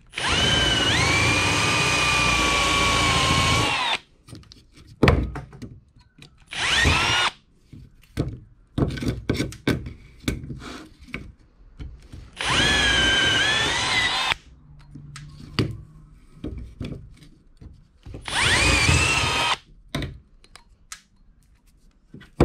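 Power drill with a 3/16-inch cobalt bit drilling out aluminum blind rivets from a hatch-lid hinge, freeing the lid. It runs four times: about four seconds at the start, a short burst, then two runs of about two seconds, its whine rising as each run spins up. Light clicks and knocks of handling fall between the runs.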